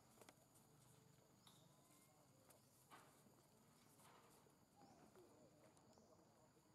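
Near silence: faint outdoor ambience with a few soft ticks and, about five seconds in, a faint short wavering call.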